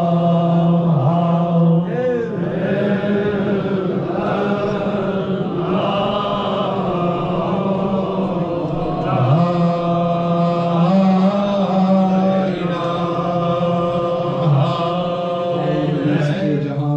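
Devotional Islamic chanting by a man's voice, holding long steady notes with smooth slides between them.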